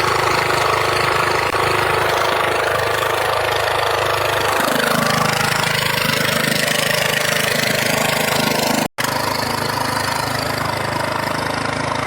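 Lawn mower's 18.5 HP Briggs and Stratton engine running steadily, with a sudden break of a fraction of a second about nine seconds in.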